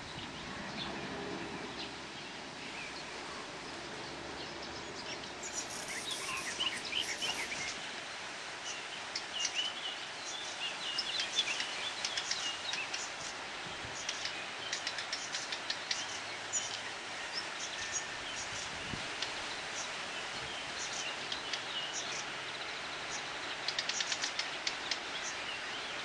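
Small songbirds chirping, with short high calls coming thick and fast from about five seconds in, over a steady outdoor background hiss.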